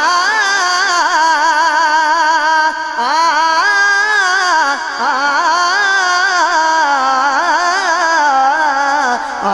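A young man's solo voice singing a naat, drawing out long wordless melismatic phrases with wavering vibrato. There are short breaks between phrases, about 3 and 5 seconds in and again near the end.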